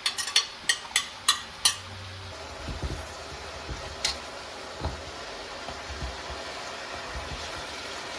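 Julienned vegetables stir-frying in hot oil in a pan: a utensil clacks against the pan several times in quick succession, then a steady sizzle carries on with a few soft knocks.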